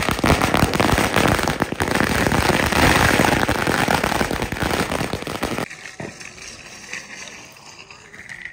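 A long string of firecrackers going off, a dense, rapid run of sharp bangs and crackles that stops abruptly about five and a half seconds in.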